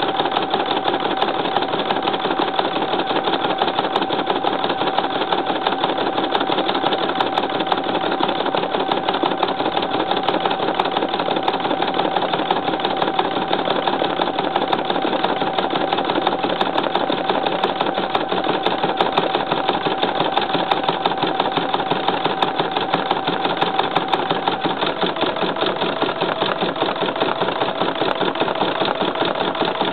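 Embroidery machine stitching at speed: a rapid, even clatter from the needle, over a steady motor whine that drops slightly in pitch about 25 seconds in.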